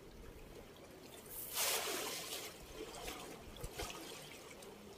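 River water splashing as a man wades and drops down into it up to his chest: one larger splash about a second and a half in, then two short ones.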